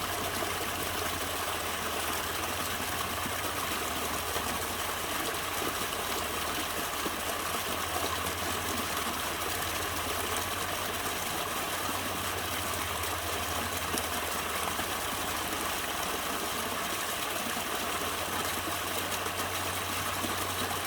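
Small mountain stream flowing, a steady rush of water, with a constant low hum underneath.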